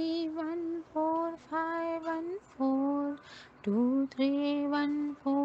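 A woman's voice chanting the number code "2314514" in a slow sing-song, each digit held on a level pitch with brief pauses between them.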